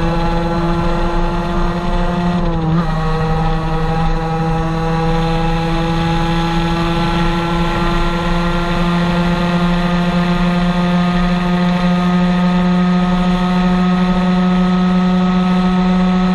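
Aprilia RS 50's 50 cc two-stroke single-cylinder engine running under way at a steady high pitch, heard from the rider's seat. Its note dips briefly about three seconds in, then climbs slowly.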